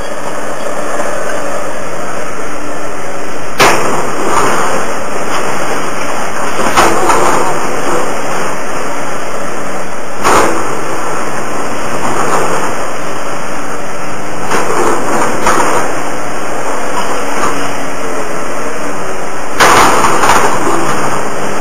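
Excavator with a demolition grapple running steadily while it tears into building rubble, with sharp crashes of breaking and falling debris several times, the loudest cluster near the end.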